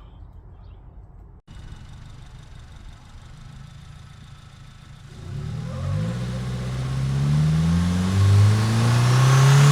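Tuned 2022 Subaru WRX's turbocharged 2.4-litre flat-four engine, heard at the aftermarket BMS intake: running steadily at first, then from about halfway through the engine speed rises as the car accelerates, the intake sound growing louder toward the end.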